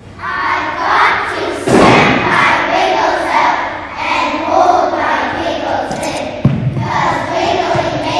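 A class of young children speaking a poem together in unison, with a heavy thump about two seconds in and a lighter one near the end.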